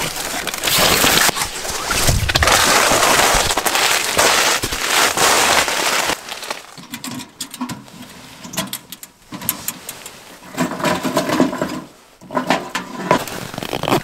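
Heavy rustling and scraping of a canvas backpack being handled. After about six seconds it turns to scattered knocks as split wood is pushed into a small steel wood stove.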